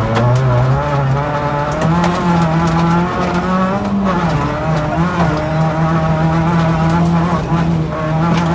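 Rally car engine running hard at high revs on a dirt stage. Its pitch climbs right at the start, dips and recovers about four seconds in and again near the end as the driver lifts and shifts. Sharp ticks of loose stones hit the car throughout.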